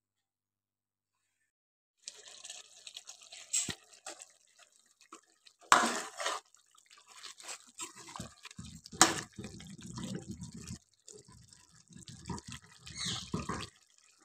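Thick chicken-and-potato curry bubbling and spluttering in an open pot as its gravy reduces, starting about two seconds in, with a few sharp clicks among the pops.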